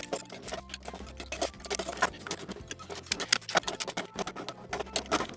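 Rapid, irregular clicks and taps of hand tools and small parts against a vacuum-tube radio's metal chassis as it is being stripped down.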